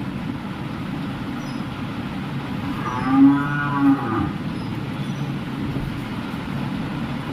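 A cow moos once, a single drawn-out call of about a second, over a steady low background hum.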